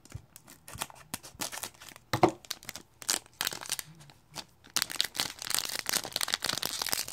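Foil wrapper of a hockey trading-card pack crinkling in the hands and being torn open: scattered sharp crackles, then a dense stretch of crinkling over the last two seconds or so.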